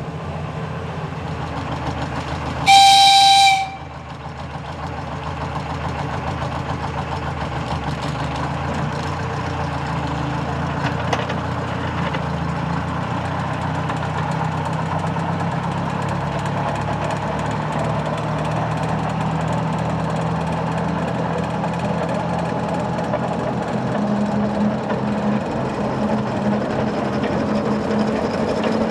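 A narrow-gauge locomotive horn gives one short blast of about a second, then the TU6D diesel locomotive's engine runs steadily. Near the end its note rises and grows louder.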